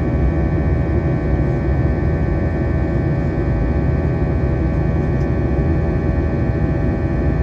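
Jet airliner cabin noise in the climb after takeoff, heard inside the cabin beside the wing-mounted turbofan engine: a steady loud rumble with several steady whining tones over it.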